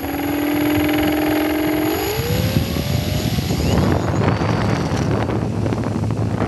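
RC airplane's motor and propeller, a steady hum that rises in pitch from about two seconds in as the throttle opens for takeoff. From about four seconds in, rushing wind noise on the onboard microphone takes over as the plane rolls and lifts off.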